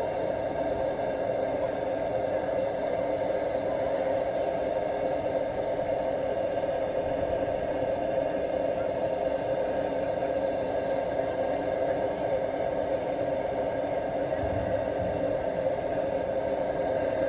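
Paraffin blowtorch burning with a steady roar of flame, heating the glow head of a Lanz Bulldog hot-bulb engine before starting.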